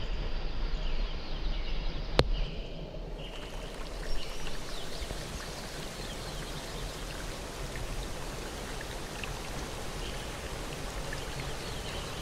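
Flowing river water rushing steadily, with a single sharp click about two seconds in.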